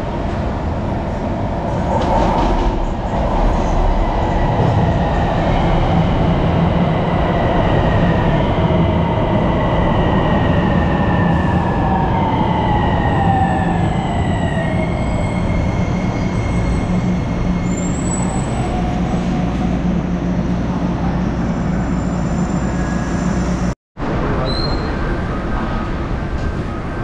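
Miami Metrorail electric train pulling into an elevated station. The rumble of the cars builds, then the motors' whine glides down in pitch as the train brakes, settling into a steady hum once it stops.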